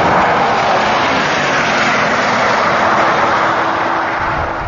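Two supercars accelerating flat out side by side down a runway: a loud, steady rush of engine and tyre noise with a faint held engine note. It eases off near the end as the cars pull away.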